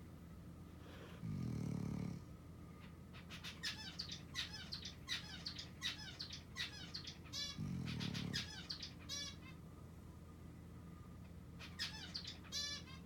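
Two long, low snores about six seconds apart, the first about a second in and the second past the middle. In between, quick high bird chirps come in rapid runs.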